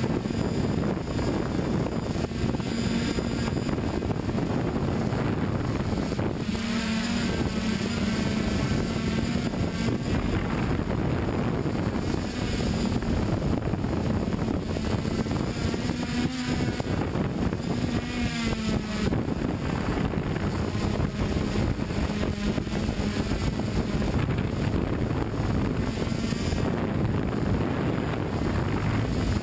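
Multirotor drone's electric motors and propellers running, a steady hum whose pitch shifts up and down as the motors change speed, with some wind noise on the microphone.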